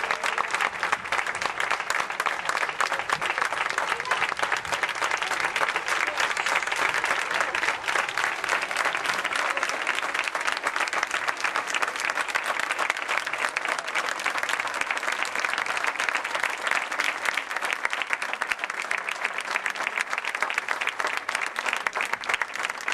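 A large audience applauding, a dense, steady clapping without a break.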